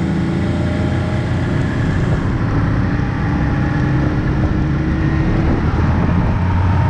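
Engine of a trail vehicle running steadily under way, getting a little louder near the end.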